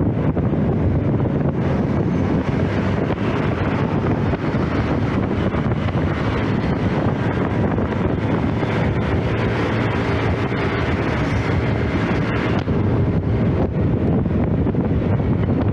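Wind buffeting the microphone over the running engine and tyre noise of a Honda automatic scooter under way in traffic. The steady rush eases a little about thirteen seconds in.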